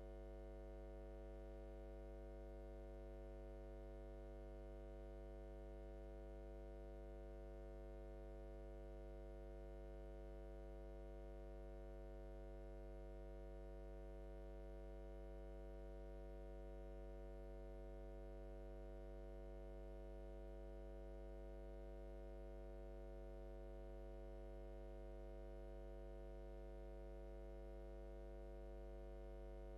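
Faint, steady electrical mains hum: a low drone with a ladder of higher overtones that never changes.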